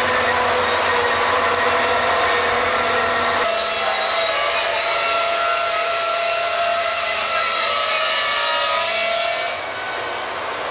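Brakes on a slowing freight train squealing as it comes to a halt: a loud, shrill screech of several high tones sounding at once, with the mix of tones shifting abruptly a few times.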